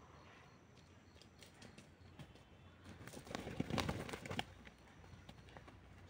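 A pigeon caught in a ground trap beats its wings in a burst of rapid flapping and rustling about three seconds in, lasting just over a second.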